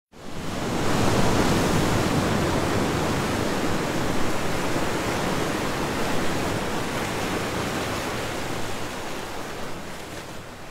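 Steady rushing noise of water, like surf, that swells in quickly at the start and slowly fades toward the end.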